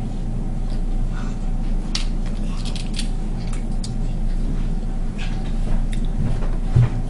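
Crab or lobster shell being cut and cracked apart while eating: scattered sharp clicks and crackles over a steady low hum, with a low thump near the end.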